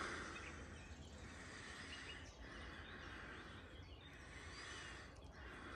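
Quiet outdoor ambience: a faint, steady hiss of background noise with no distinct event.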